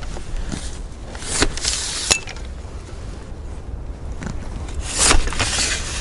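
Fiskars bypass pole pruner at work in the crown of a cherry tree: a few short, sharp snaps and rustles as the head closes on shoots and brushes through twigs, over a steady low rumble.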